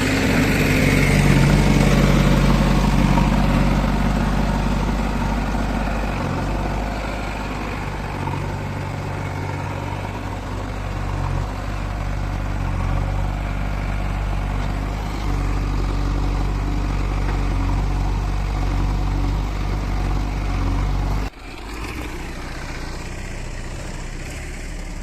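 Diesel engine of heavy machinery running steadily with a low hum, loudest in the first few seconds. About 21 seconds in the sound drops abruptly and carries on more quietly.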